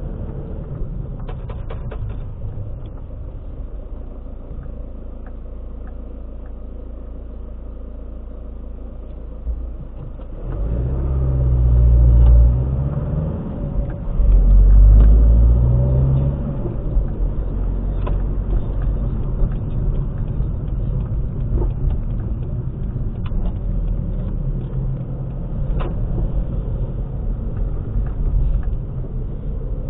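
Car engine and road noise heard from inside the cabin while driving, a steady low rumble. About ten seconds in it grows louder as the engine revs up twice in a row, like accelerating through a gear change, then settles back into steady cruising.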